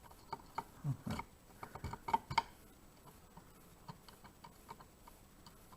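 Faint, irregular small clicks and taps of lock pins and a key blank being handled and test-fitted, most of them in the first two and a half seconds, then sparser.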